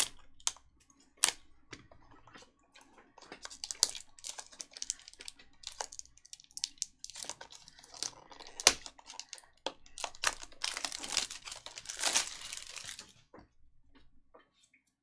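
Plastic shrink wrap on a trading card box crinkling and tearing as it is slit with a box cutter and peeled off, with a few sharp clicks early on and one loud snap just past the middle; the crinkling is densest near the end before it quiets down.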